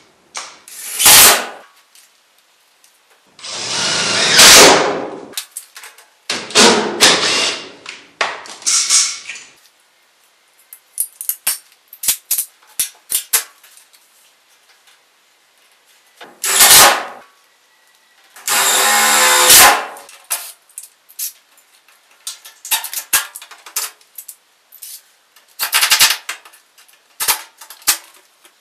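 Cordless drill driving self-tapping screws into the sheet metal of an air handler and its return plenum box, in several short whirring runs, with clicks and taps of tools and metal clips being handled in between. The recording is fast-forwarded, so every sound is sped up.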